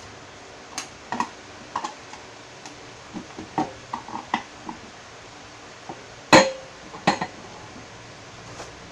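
Hard plastic toy parts clicking and knocking together while a play-dough cupcake tower is assembled: scattered taps, with a louder knock about six seconds in and another about a second later.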